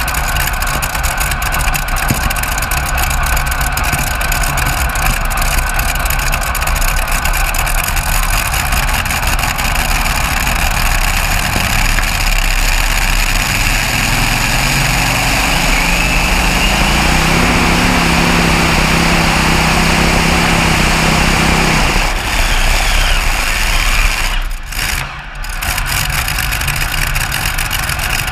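Twin Rolls-Royce Griffon V12 aero engines of a heavy modified pulling tractor running loud. For much of the pull the engine note climbs steadily in pitch under load. It then drops away suddenly as the throttle comes off, about three-quarters of the way through.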